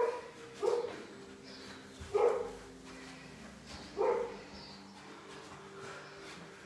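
A dog barking: four short single barks, spaced one to two seconds apart.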